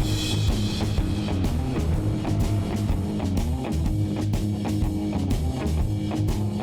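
Background rock music: electric guitar over a steady drum-kit beat.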